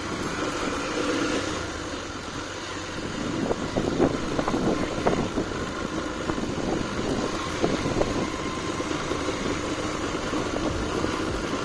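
A vehicle's engine running steadily as it drives along, with scattered short knocks and rattles.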